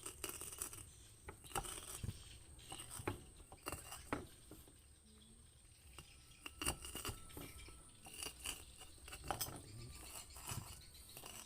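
Light, irregular clicks and taps from small kitchen utensils and ingredients being handled.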